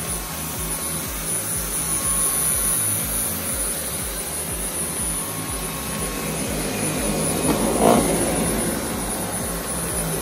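Dyson Cyclone V10 cordless stick vacuum running on carpet with its motorised brush-bar head: a steady motor whine over a rush of suction, with a brief louder surge about eight seconds in.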